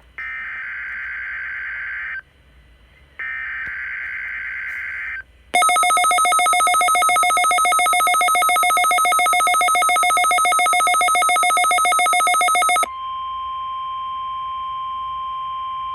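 NOAA Weather Radio weekly test alert received on a Midland WR400: two buzzing bursts of digital SAME header data about two seconds each, then a loud, rapidly pulsing electronic alarm lasting about seven seconds, then a steady single-pitch warning alarm tone.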